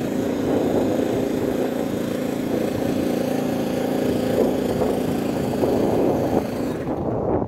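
Handheld electric starter cranking a radio-controlled model airplane's engine through the propeller spinner: a steady, even drone that eases off about seven seconds in.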